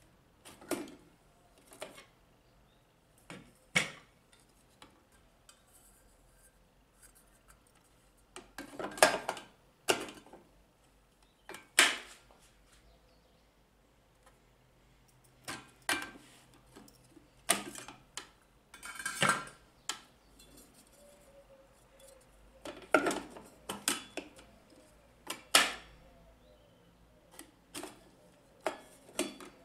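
Hard kitchen parts clinking and knocking as they are handled and set down: a couple of dozen separate sharp knocks, some in quick clusters, at irregular intervals, with no motor running.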